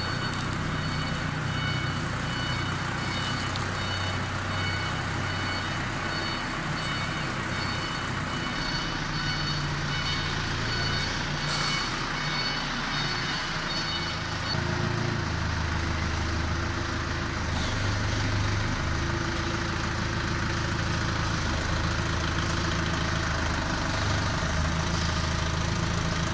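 LonKing forklift engine running steadily as the truck drives with a loaded crate on its forks, working harder about halfway through. Over the first half a high electronic warning tone from the forklift sounds, then stops.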